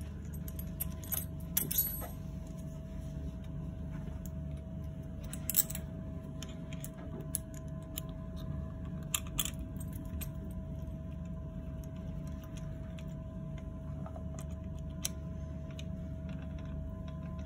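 Scattered sharp metallic clicks and clinks of a small bolt, tab washer and hand tool against a saildrive propeller hub, several near the start and the loudest around five and nine seconds in, over a steady low hum.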